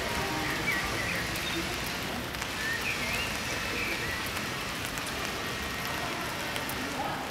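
Steady hiss of rain falling on a flooded street, with faint fine drip ticks.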